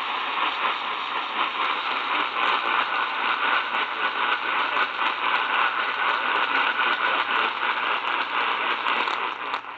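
Heavy AM radio static: a steady hiss and crackle of noise from a receiver tuned to a weak, distant station on 1190 AM. It cuts off suddenly near the end.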